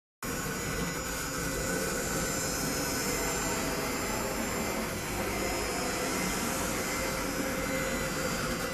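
CNC router spindle running steadily while machining a small block, a continuous hiss with a faint high steady whine. It starts abruptly a moment in.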